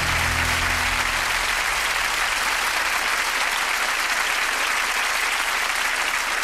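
Studio audience applauding steadily, with the last low note of the theme music fading out in the first few seconds.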